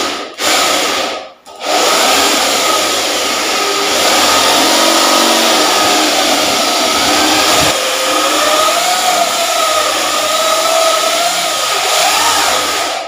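Corded electric drill with a Forstner bit boring a concealed-hinge cup hole into a wooden cabinet door. Two short trigger pulses start the cut, then the drill runs steadily under load for about eleven seconds, its pitch wavering, and stops near the end.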